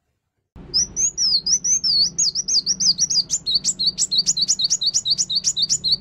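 Cucak kinoi leafbird singing. After about half a second of silence it gives a run of quick, high warbling notes, then a fast series of sharp repeated notes at about four a second.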